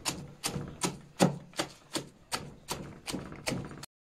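Steel hand chopper (sechka) on a long wooden handle chopping cabbage leaves and carrots against the bottom of a wooden trough, in an even rhythm of about three chops a second. The chopping cuts off abruptly near the end.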